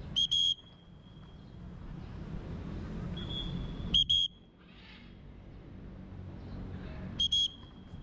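A whistle blown in three short double blasts, each a piercing steady high note, about three and a half seconds apart: a recall signal to a free-flying parrot. A low city hum runs underneath.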